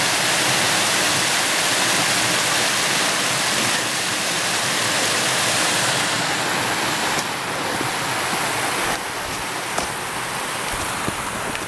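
Small mountain waterfall, a creek cascading over rocks, giving a steady rush of water. It grows somewhat fainter in the second half.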